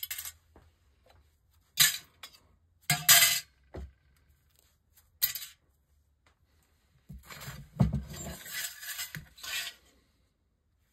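Pieces of scrap sterling silver clinking against a glass jar and the scrap already in it: about five separate sharp clinks, then a longer run of rattling and jangling near the end as the jar and its contents are moved.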